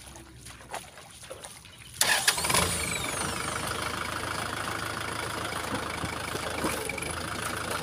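Kubota tractor's diesel engine starting about two seconds in, catching at once and then running steadily at idle.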